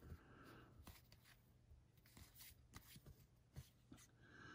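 Faint, scattered flicks and slides of baseball trading cards being flipped through one at a time in the hand, each card moved to the back of the stack.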